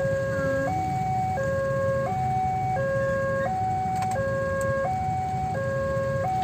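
Battery-powered toy train playing an electronic two-note hi-lo siren, switching between a higher and a lower note about every 0.7 seconds, over a steady low rumble.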